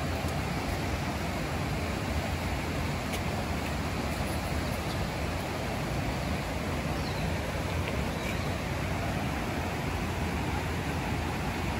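Steady rushing of a rocky mountain stream, an even noise throughout, with a few faint clicks.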